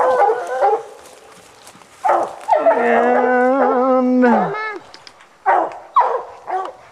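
Hunting hounds baying at a treed bear: short barks, then one long drawn-out bawl of about two seconds that drops in pitch as it ends, then more short barks near the end.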